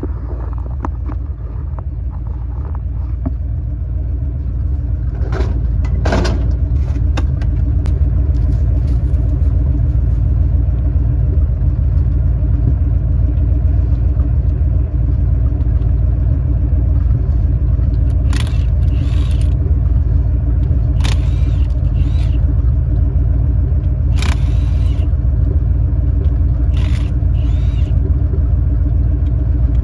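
1968 Dodge D300 tow truck running, a steady low engine rumble that grows louder over the first several seconds and then holds. Several short bursts of hissing noise cut in now and then.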